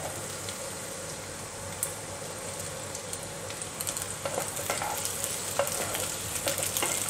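Diced capsicum and onion sizzling in hot oil with browned garlic in a kadhai, while a wooden spatula stirs them. From about halfway through, the spatula adds frequent small knocks and scrapes against the pan.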